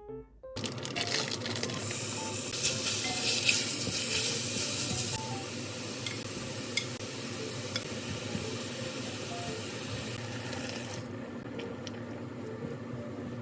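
Steady kitchen hiss from cooking, sizzling or running water, starting suddenly about half a second in and dropping off near the end, with a few sharp clinks of utensils or dishes. Soft background music plays underneath.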